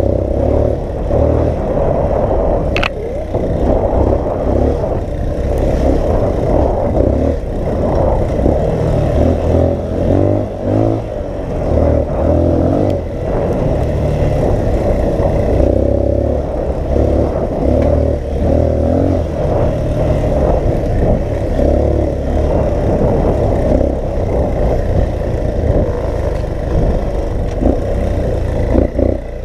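Dirt bike engine running on a rough trail, the throttle opening and closing, with wind buffeting the microphone. One sharp click about three seconds in.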